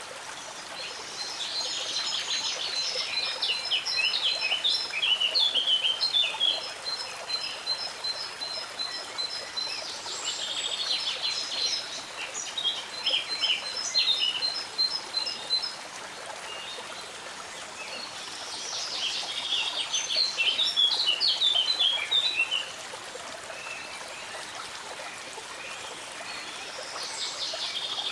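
Songbirds singing in several bursts of quick chirps and trills, a few seconds apart, over the steady rush of a flowing stream.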